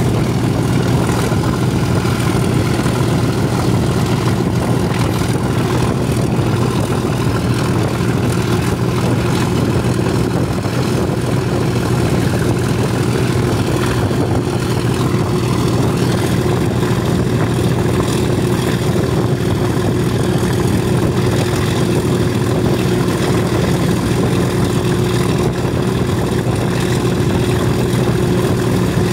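English Electric V12 diesel engine of a Class 37 locomotive running steadily under power as the train moves along, with a constant low drone and a haze of wind and rail noise.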